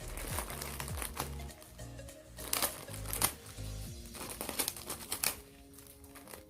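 Background music with a steady bass line, over the crinkling and rustling of parcel packaging being handled and opened, with a few sharp crackles.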